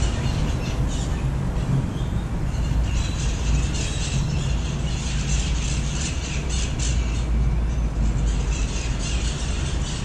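A flock of parrots squawking in rapid chattering runs, from about three seconds in to seven and again near the end, over a steady low rumble of city traffic.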